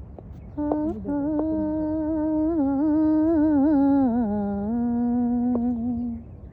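A woman's voice humming a slow wordless melody as the lead-in to a Punjabi Sufi kalam: long held notes with small wavering ornaments. It steps down to a lower note about four seconds in and holds it until it stops shortly after six seconds.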